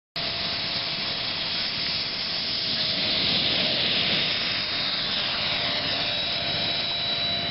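Sebart Blanik RC scale glider's 70 mm electric ducted fan, a steady jet-like whine and hiss, cutting in suddenly at the start. The model makes a low pass, and its whine falls in pitch about halfway through as it goes by.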